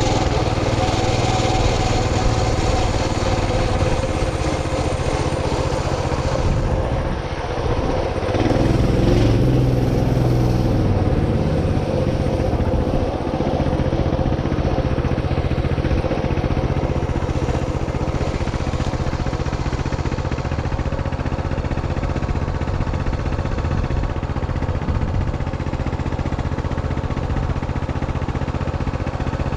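Small engine of the vehicle carrying the camera, running steadily as it travels. It eases off and then picks up again, shifting in pitch, about eight seconds in.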